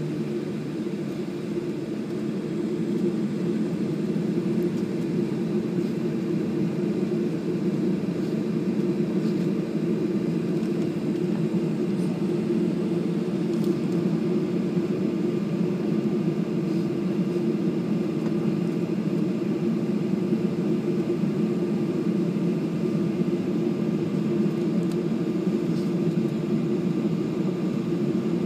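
Steady jet airliner noise heard from inside the cabin as the plane taxis: an even low hum and rush from the engines, growing a little louder in the first few seconds. A faint steady high tone joins about halfway through.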